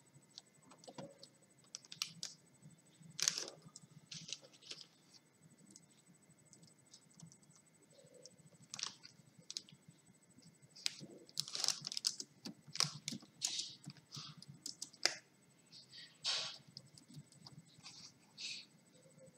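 Scattered soft clicks and taps at irregular intervals, some with a short hiss, over a faint steady background hum. They are busiest in the middle and later part, with no clear rhythm.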